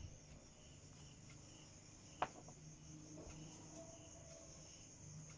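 Near silence with a faint, steady high-pitched trill of crickets in the background and a single soft click about two seconds in.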